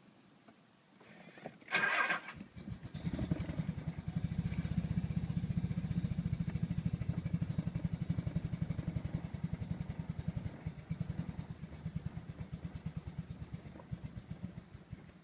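Nissan 300ZX Twin Turbo's VG30DETT V6 being turned over by the starter in a steady fast rhythm for about twelve seconds without catching: a no-start. A brief sharp burst comes about two seconds in, just as the cranking begins, and the rhythm grows uneven before it stops.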